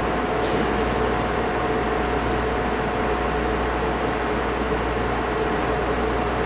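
Steady machinery hum and hiss of an indoor ice rink, with a constant tone running through it, and a faint scrape of figure-skate blades on the ice about half a second in.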